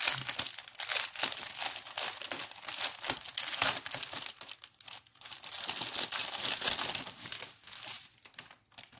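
Plastic packaging of a diamond painting kit crinkling and rustling in irregular handfuls as it is handled, with a brief lull just before the end.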